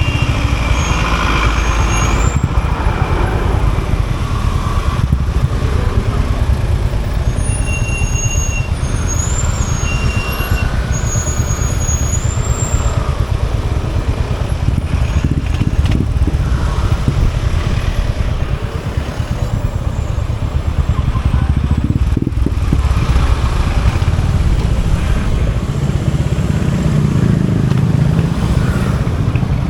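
Royal Enfield Hunter 350's 349cc single-cylinder J-series engine running steadily, a deep continuous exhaust note, with road-traffic noise around it.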